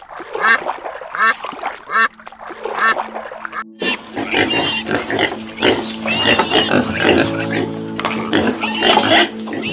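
Common eiders giving short, repeated calls, then from about four seconds in a litter of piglets squealing and grunting as they suckle at a sow. Soft background music plays underneath.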